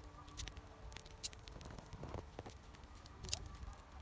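Faint wood fire crackling, with scattered sharp pops and snaps over a low background rumble.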